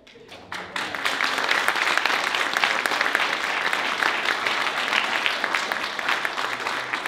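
Audience applauding: dense clapping that starts about half a second in, builds within a second and then holds steady.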